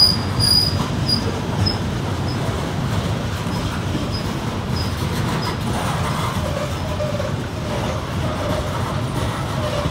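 Loaded coal train's hopper cars rolling past, a steady low rumble of steel wheels on rail. A repeated high squeak fades out in the first two seconds, and a faint squeal comes and goes from about six seconds in.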